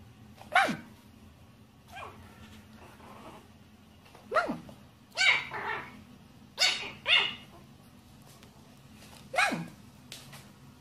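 Small white fluffy puppy barking: about seven short, sharp barks spaced unevenly, each one dropping quickly in pitch.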